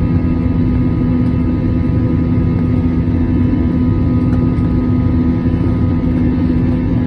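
Airbus A321-200 jet engines heard inside the passenger cabin during the climb after takeoff: a steady low drone with a strong held hum and fainter higher tones over it.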